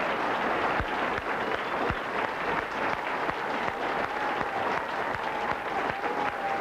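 Audience applauding, a dense crackle of clapping, with a steady held note sounding underneath it.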